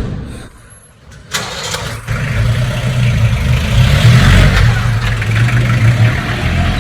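A motor vehicle's engine comes in suddenly about a second and a half in and keeps running loud and steady close by, with a low hum and a rushing hiss over it.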